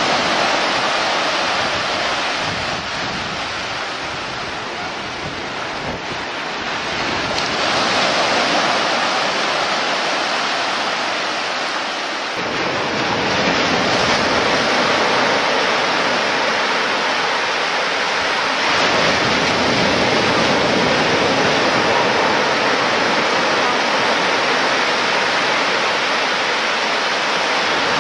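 Steady rushing of sea surf and wind, easing slightly and then swelling a little louder about a third of the way through.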